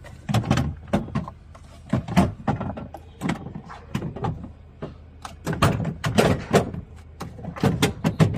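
Irregular knocks, clicks and clatter, several a second, from parts of a coffee vending machine being handled, over a low steady hum.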